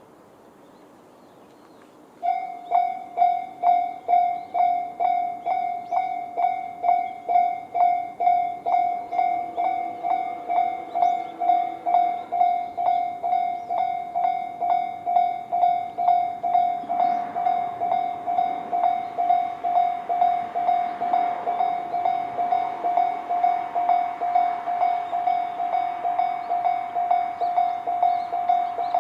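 Japanese level-crossing electronic warning bell of the Tobu 'C' sound type, from both sides of the crossing, starts about two seconds in and rings at about two strokes a second. From about halfway a broad rush of noise builds beneath it, fitting an approaching Tobu 20400 series train.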